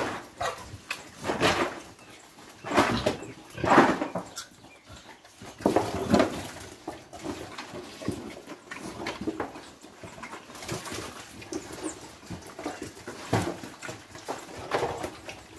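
Pigs grunting and calling while crowding and feeding at a trough. Loud short calls come irregularly every second or two, the loudest in the first six seconds.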